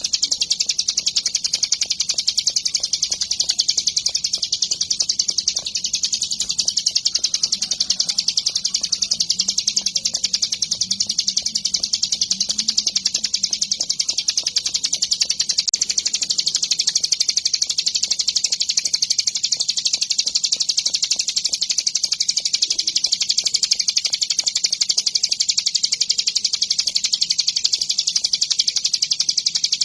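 Ciblek gunung, a mountain prinia, singing without pause: a rapid, unbroken stream of high chirping notes.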